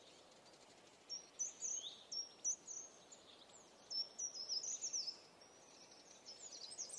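Faint songbird chirping: three short phrases of quick high notes with pauses between, over quiet outdoor hiss.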